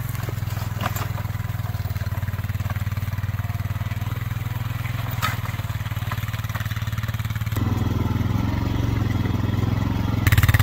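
Four-wheeler ATV engine running steadily at low speed while towing a loaded steel utility cart over rough ground, with a few light knocks. The engine sounds fuller about three-quarters of the way in and much louder and closer just before the end.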